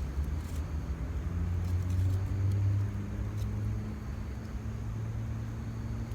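Low, steady engine hum of a motor vehicle running, swelling briefly about two seconds in, with a few faint clicks over it.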